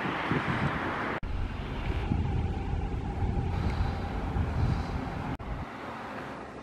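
Outdoor town ambience: wind on the microphone and a low rumble of distant traffic. The background changes abruptly about a second in and again about five seconds in, where the recording is cut.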